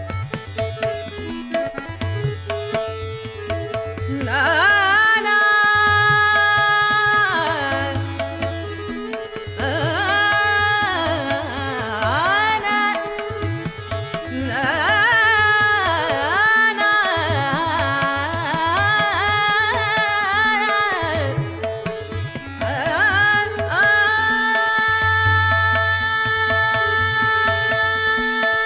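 Female Hindustani classical vocal in raga Shankara, holding long high notes joined by sweeping glides. Tabla keeps a steady rhythm underneath, with a sustained drone.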